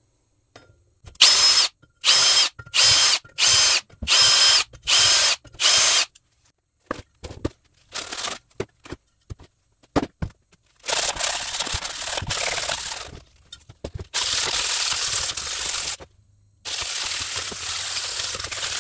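A drill spinning a valve guide cutter on an arbor in the valve guides of an aluminium small-block Chevy cylinder head, in about eight short bursts with a whine; the cutter is only cleaning up the guides. Then a few clicks of handling, and three long hisses of an aerosol can spraying the head.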